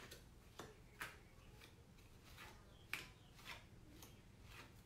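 Near silence with a few faint taps and rustles as felt cut-out pieces are pulled off and pressed onto a felt board on the wall.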